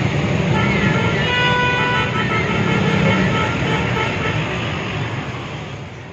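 Street traffic noise: a dense rumble of passing vehicles with faint horn tones, fading out near the end.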